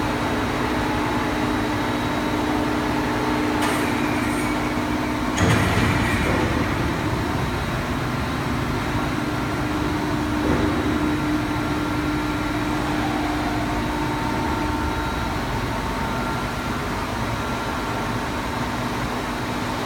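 CNC tool grinding machine running: a steady machine hum with several held tones, broken by two short rushes of hissing noise about four and five and a half seconds in.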